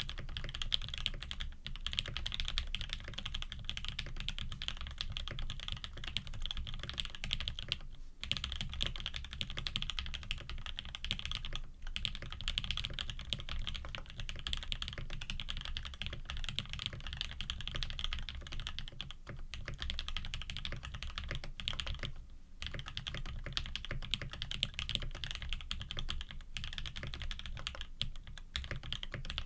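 Fast, continuous typing on a custom Frog TKL mechanical keyboard with lubed Tangerine linear switches, GMK keycaps and an aluminium plate: a dense run of keystroke clacks, broken by a few brief pauses.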